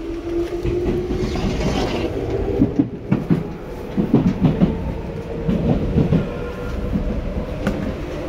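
Tokyu 9000 series electric train running, heard from inside the car: a motor whine rising slowly in pitch in the first second, fading under the clickety-clack and irregular knocks of the wheels over the rail joints.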